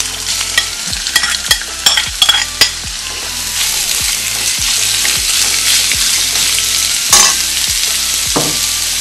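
Chopped beef steak hitting hot oil in a pan and sizzling, the sizzle growing louder over the first few seconds as the meat goes in. Clicks and scrapes of a spatula stirring the meat run through the first three seconds, with one louder click about seven seconds in.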